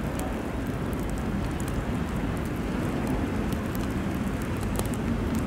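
VL11M two-section electric freight locomotive hauling a train of tank cars on its slow approach: a steady rumble with scattered light clicks.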